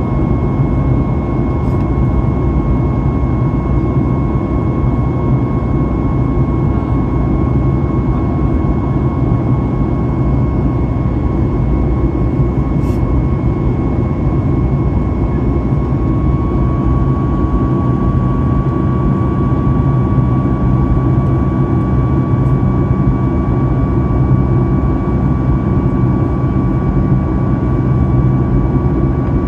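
Cabin noise of a Boeing 737 MAX 8 in flight, heard from a window seat beside its CFM LEAP-1B engine: a steady dense rumble with a high whine held on one note, which rises slightly about halfway through.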